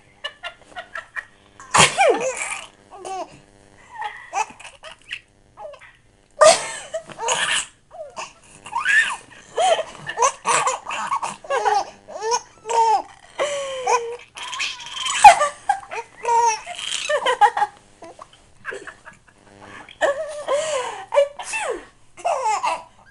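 Baby laughing hard in repeated fits of giggles and belly laughs, set off by an adult's fake sneezes and coughs, which come as a few sudden loud bursts, the loudest about two-thirds of the way through.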